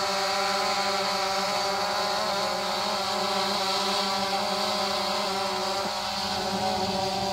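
DJI Phantom 3 quadcopter hovering close by, its four motors and propellers giving a steady buzzing whine with small wavers in pitch as it holds position and drifts.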